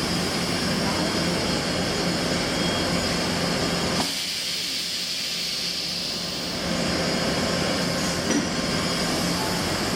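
Steady din of workshop machinery and fans on a leather watch-strap factory floor, with a faint steady hum running through it. It drops off suddenly about four seconds in and comes back some two seconds later.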